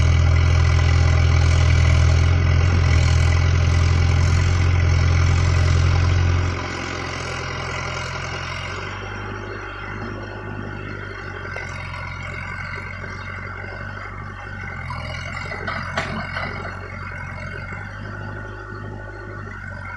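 Caterpillar backhoe loader's diesel engine running steadily, then dropping to a quieter, lower idle about six seconds in. A single sharp click sounds near the end.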